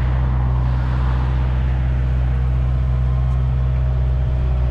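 Kubota KX057-5 compact excavator's four-cylinder diesel engine running steadily at a constant speed while the machine moves across the ground on its tracks.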